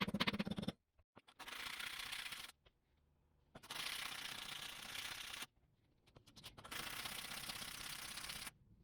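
Three long rasping rubbing strokes of an abrasive being worked by hand over the old screwdriver, each lasting one to two seconds with short pauses between. A brief rapid rattle of clicks comes at the very start.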